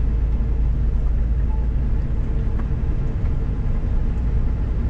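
Scania S500 truck's diesel engine pulling steadily, heard inside the cab as a steady low rumble with tyre noise on a packed-snow road.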